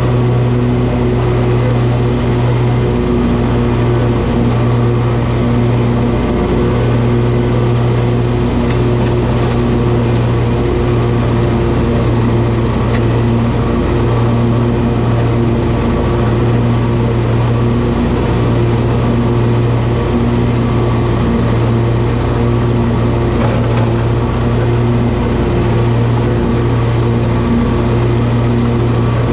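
Toro zero-turn riding mower running steadily, its engine giving a loud, even low drone that holds the same pitch throughout.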